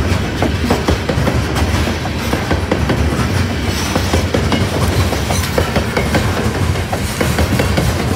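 Loaded coal hopper cars rolling past, their wheels clacking over the rail joints in quick irregular clicks over a steady low rumble.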